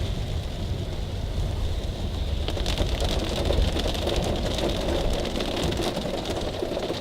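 Small car driving through floodwater, heard from inside the cabin: a steady low engine and road rumble with a hiss and patter of water on the car that grows stronger about two and a half seconds in.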